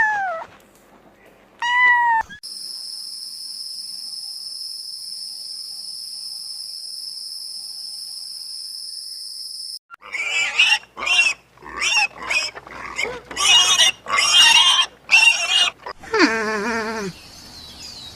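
A run of different animal calls. Two short pitched calls open it, followed by a steady high-pitched buzz lasting about seven seconds. Then comes a quick series of short squeals and cries, and two long falling wails near the end.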